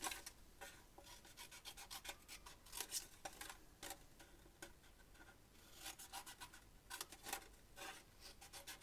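Designer paper being cut into and handled: faint, irregular scratchy rustles and snips of cardstock.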